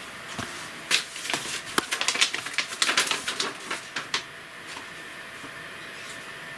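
A rapid run of light clicks and rustling, like small plastic kit parts and packaging being handled and moved about, lasting a few seconds, then quiet room tone.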